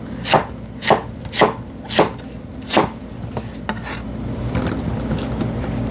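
Kitchen knife chopping a firm Korean radish (mu) into thick pieces on a wooden cutting board. There are about five sharp cuts in the first three seconds, then a few fainter ones.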